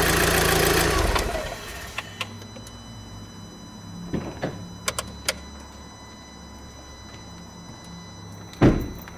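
Audi TTS 2.0 TFSI turbocharged four-cylinder engine idling, then switched off about a second in and spinning down to a stop. Afterwards a faint low hum remains with a few scattered light clicks, and a loud thump near the end.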